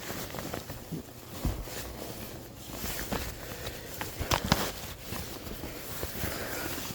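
Someone clambering across an attic: irregular footsteps, knocks and rustling, with a few sharper knocks together about four and a half seconds in.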